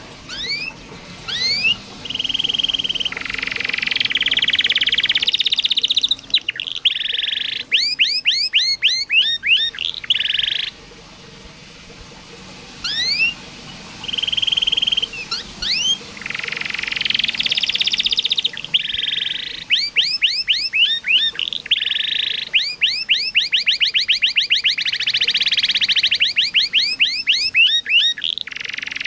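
Domestic canary singing. Its song runs in phrases of quickly repeated rising chirps and fast trills, alternating with dense buzzy rolls, with a short break about halfway through.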